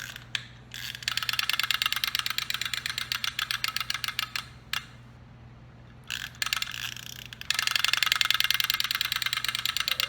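Wind-up chattering teeth toy clacking rapidly as it runs. There is a long run, a brief break near the middle, a short burst, then another long run.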